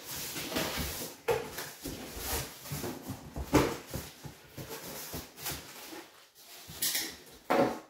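Cardboard shipping box being opened: tape slit, flaps pulled back with scrapes and knocks, then crumpled metallic packing paper rustling as things are pulled out, with two sharp crinkles near the end.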